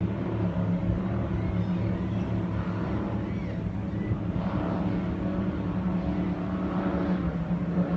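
A motor engine running steadily: a continuous low hum with no change in speed.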